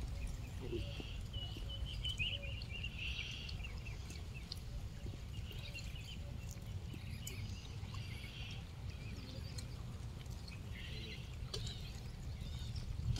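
Outdoor ambience: faint, short high-pitched animal chirps come and go over a steady low rumble.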